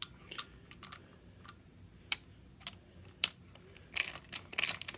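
Hand socket ratchet clicking as the bolts on an engine block-off plate are tightened down: scattered single clicks, then a quick run of ratcheting clicks near the end.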